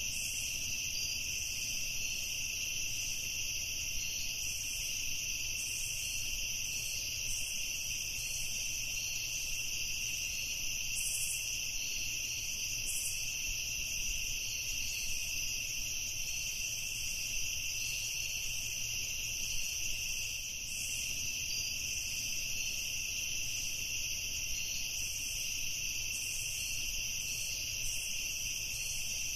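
Steady high-pitched chorus of night insects such as crickets, trilling continuously without a break.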